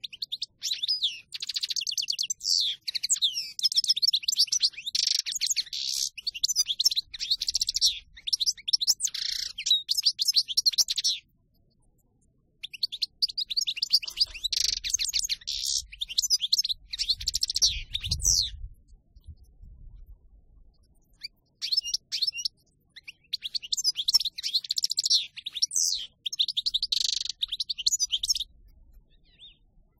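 Caged European goldfinch singing its wild song: three long bouts of fast, varied twittering and trills, with short pauses between them. A faint low rumble sits under the middle bout.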